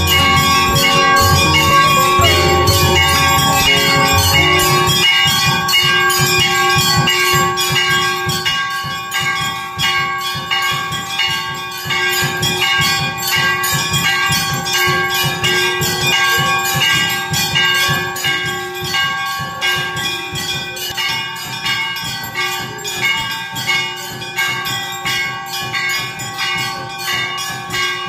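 Hindu temple bells rung rapidly and without a break for aarti, a fast even clanging with a steady metallic ring hanging over it. A low, musical accompaniment sounds under the bells for the first five seconds or so, then stops.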